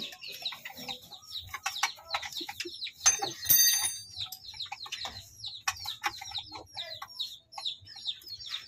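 Birds chirping: a steady run of short, quick falling chirps, with a louder, higher call about three seconds in.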